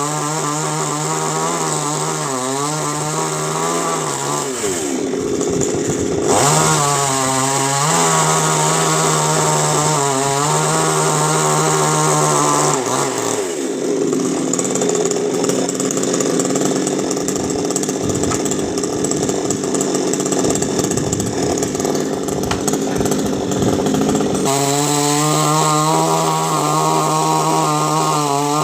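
Chainsaw cutting into a coconut palm trunk. It runs at high, steady revs, then loads down into the wood twice: briefly about four seconds in, then for about ten seconds from the middle on. In each cut the clear engine note gives way to rough sawing noise.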